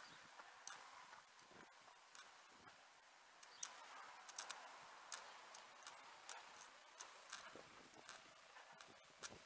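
Faint footfalls of a runner, heard as light ticks roughly twice a second, over a soft steady hiss.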